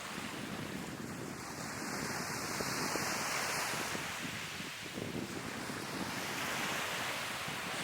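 Sea waves breaking and washing onto the shore, the surf swelling twice, with wind buffeting the microphone.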